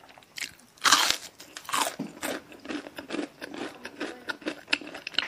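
Crispy fried chicken being bitten and chewed close to the microphone: one loud crunch about a second in, then a run of smaller irregular crunches.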